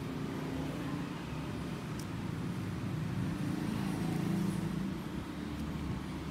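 Steady low background rumble that swells slightly in the middle, with one faint click about two seconds in.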